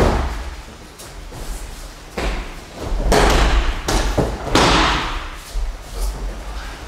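Aikido breakfalls on mats: several thuds and slaps as practitioners are thrown and land or roll on the mat, with the biggest ones in the middle.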